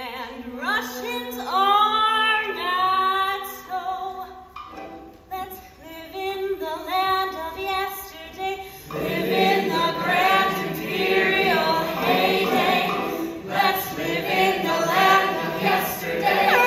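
Live stage-musical singing: a female soloist sings long, held notes, then a full chorus of voices comes in about halfway through and the sound grows fuller.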